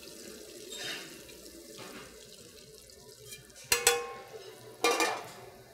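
Hot butter spooned over fish fillets in a skillet, with a faint steady sizzle. Near the end come two sharp metallic clanks about a second apart, a metal spatula striking the pan.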